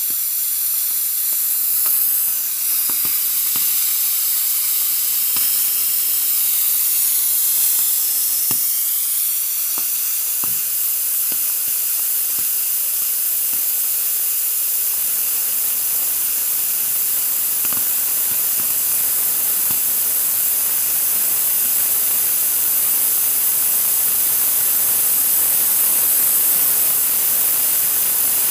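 Open water faucet hissing loudly as trapped air is forced out of the pipes after the water supply was shut off, with a high whistling tone that dips and rises about a third of the way in and faint scattered pops.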